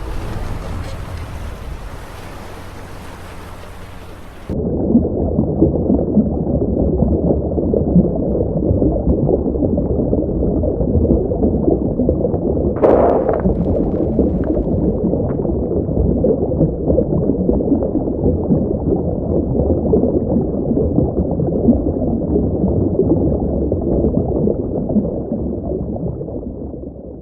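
Waves and wind, then from about four seconds in an abrupt switch to a loud, muffled, crackling rumble of rushing, gurgling water, the sound effect of the sinking ship going under. A brief sharper burst comes about halfway.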